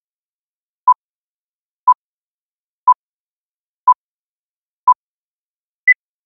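Film-leader countdown beeps: short electronic beeps of a single pitch, one a second, five times, then one higher-pitched beep near the end.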